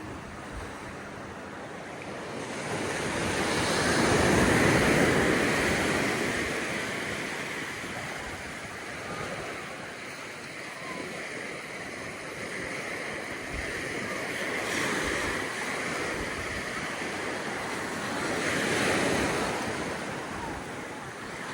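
Ocean surf breaking on a sandy beach, swelling louder about four seconds in and again near the end, with some wind buffeting the microphone.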